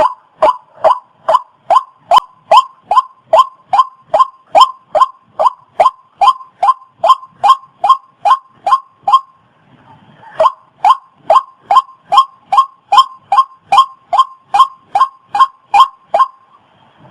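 Waterhen calling: a long monotonous run of short, identical notes, about two and a half a second, with a break of about a second just past the middle.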